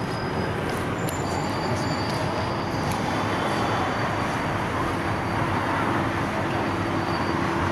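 Steady city street traffic noise, with a few faint sharp clicks in the first three seconds and a low steady engine hum coming in about halfway through.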